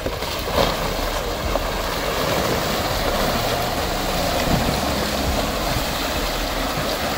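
A Volkswagen Touareg's 3.0 V6 diesel engine running at low speed as the SUV crawls through a deep muddy water crossing, its tyres churning and splashing through mud and water.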